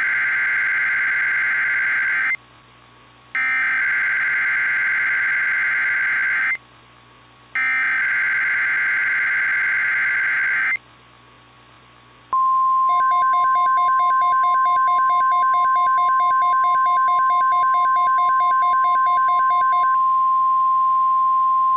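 NOAA Weather Radio emergency alert tones: three screechy bursts of SAME digital header data, each about three seconds long with short gaps between them. These are followed about twelve seconds in by the steady 1050 Hz weather radio warning alarm tone, with a rapid pulsing electronic beep layered over most of it. The alarm signals that an emergency alert is about to be broadcast.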